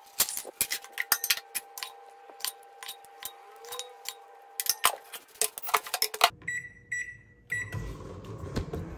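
Ceramic plates and utensils clinking and clattering over a steady electric hum, then a microwave oven beeps three times.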